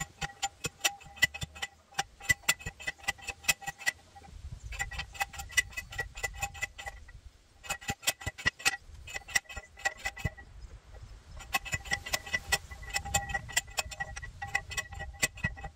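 Manual post driver pounding a steel T-post into the ground: quick, repeated metallic clanks, each with a short ring, in four runs of a few seconds separated by brief pauses.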